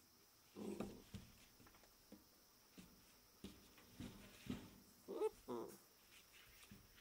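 Rottweiler puppy giving two short, soft whimpers about five seconds in, amid a few faint taps and scuffs as it shifts about on the kennel floor.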